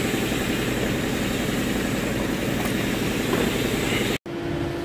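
A steady engine-like drone, as of an engine idling. It cuts off abruptly just past four seconds in, and a fainter steady hum with one held tone follows.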